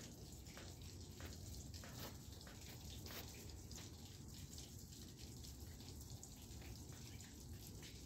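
Faint, irregular tapping of drops falling onto the ice-coated leaves and branches of a tree, several ticks a second, over a low steady rumble.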